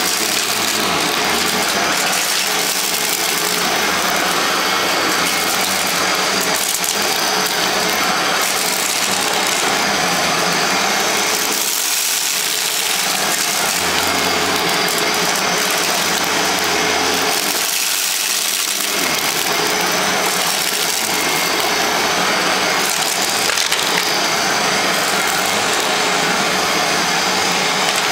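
Hoover WindTunnel self-propelled bagless upright vacuum (model U6630) running steadily on carpet, with a crackle of small debris being sucked up.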